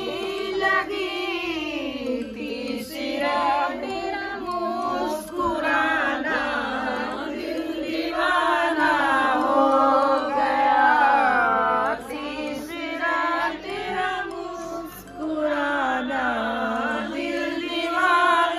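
Singing with music: a voice holds long notes that waver in pitch, with short breaks between phrases.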